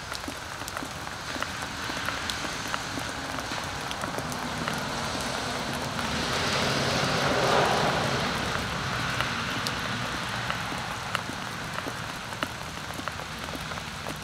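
Light rain pattering steadily with scattered small drip ticks, and a car passing about 50 yards away, its noise swelling and fading again between about six and nine seconds in.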